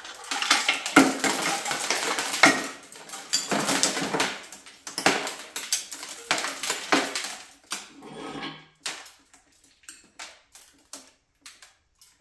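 Broken piston and ring fragments rattling and clattering out of a blown LS7 aluminium V8 block as it is rolled over on an engine stand. The pieces fall out in a dense clatter for about eight seconds, then only a few scattered ticks of last bits dropping out.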